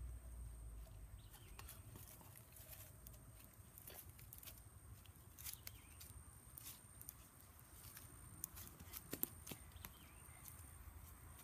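Near silence: faint scattered clicks and ticks over a thin, steady high whine.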